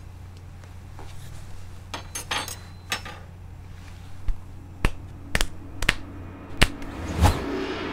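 A series of sharp single clicks and knocks, a few scattered at first and then a quicker irregular run, the loudest near the end, over a steady low hum.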